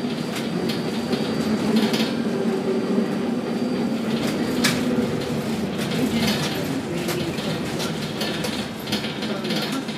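Container gantry crane machinery at work: a steady hum from the drive motors that swells and eases, with several sharp knocks, the strongest about halfway through.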